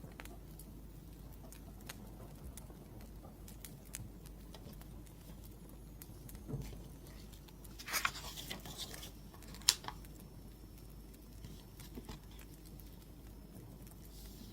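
Wood fire crackling with scattered small pops, and one louder sharp pop nearly ten seconds in. A brief scratchy rustle comes just before that pop.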